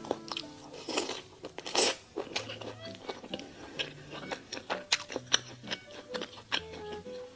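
Close-miked eating: a string of crunchy bites and wet chewing crackles, with one longer crunch near the 2-second mark.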